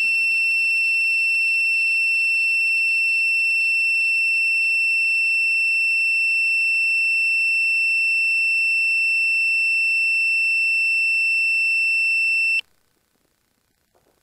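Steady high-pitched electronic tone from the landed FPV quadcopter: one pitch with overtones, cutting off suddenly a little before the end.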